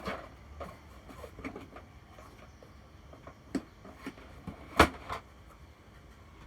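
Scattered light clicks and knocks, as of objects being moved about, with two sharper knocks in the second half, the louder one near the end.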